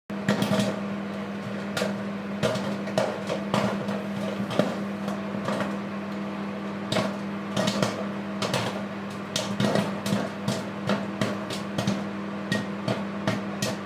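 Microwave oven humming steadily while a bag of microwave popcorn pops inside it, with many sharp, irregular pops throughout.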